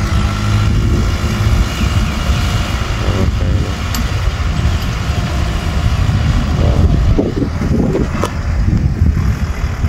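Kubota M6040 tractor's diesel engine running steadily under load while pulling a disc plough through dry soil, a continuous low drone with a couple of brief clicks.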